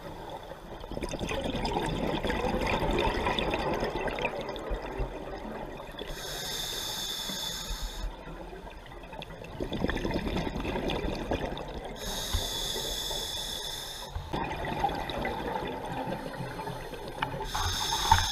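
A scuba diver breathing through a regulator underwater. A hissing inhalation through the demand valve lasts about two seconds, then a longer burble of exhaled bubbles follows, and the cycle repeats about every six seconds, three times.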